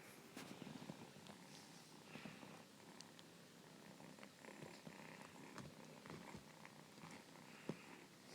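Faint purring of a nursing kitten, with scattered soft clicks from its suckling.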